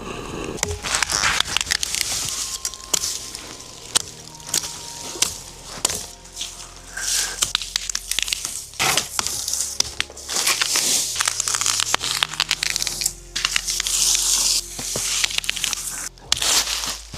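Soft background music under a run of crinkling, crackling and clicking handling noises.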